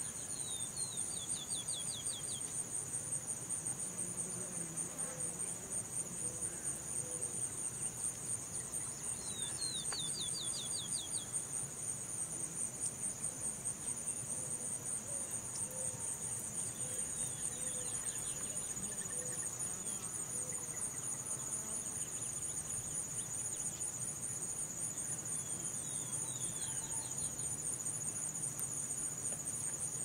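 Crickets trilling steadily in two high-pitched, continuous layers, one with a fast pulse. A bird breaks in about four times with a short run of quick high notes.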